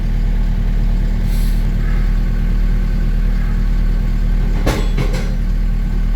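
Vertical baler's hydraulic motor running with a steady low hum as the ram comes down. A brief hiss comes about a second in, and a sharp clank about three-quarters of the way through, followed by a lighter knock.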